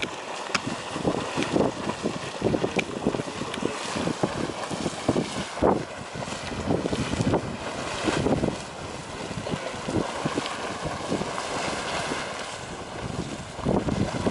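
Geyser erupting: water gushing and splashing in irregular surges, with wind on the microphone.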